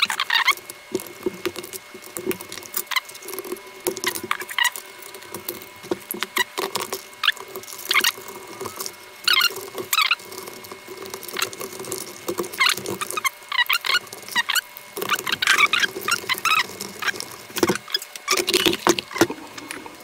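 Irregular small clicks, taps and rattles of plastic and sheet metal as a Dell OptiPlex 9020 small-form-factor desktop is put back together by hand, with parts such as a memory module and the drive cage being fitted into the case.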